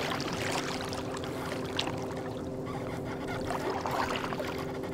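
Minn Kota i-Pilot electric trolling motor running with a steady hum as it pulls the boat, with water trickling alongside.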